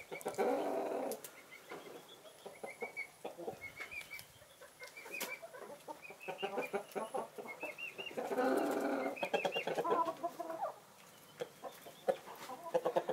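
Backyard hens clucking: a run of short, high calls, with two longer, fuller calls of about a second each, one just after the start and one about eight seconds in.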